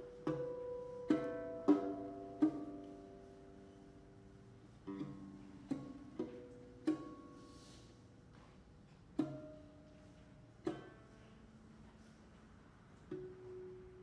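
Solo lute plucked sparsely: about a dozen single notes and chords, each ringing and fading away, spaced out with gaps of a second or two between them.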